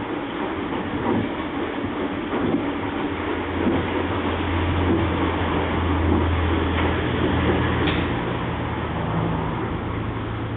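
Ipso 181 commercial washing machine running, its drum and motor giving a steady rumble with a low hum that shifts higher about seven seconds in.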